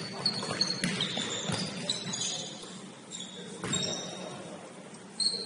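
Basketball game in play: sneakers squeaking briefly and repeatedly on the court, with a few knocks of the ball bouncing and of footfalls.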